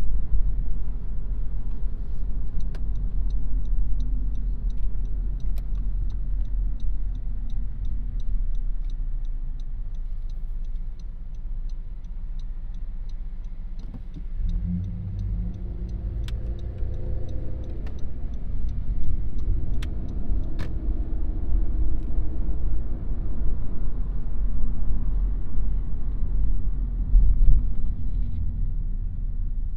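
Car on the move heard from inside the cabin: a steady low rumble of engine and tyres. A fast, regular ticking runs through roughly the first third, and a stronger engine note comes in about halfway through as the sound grows louder.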